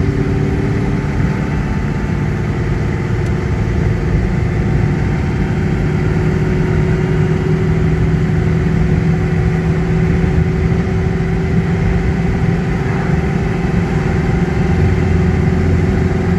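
C5 Corvette's V8 running under way in fourth gear through a freshly rebuilt T56 six-speed manual, its note climbing slowly as the car gathers speed. Road and wind noise come in through the open window.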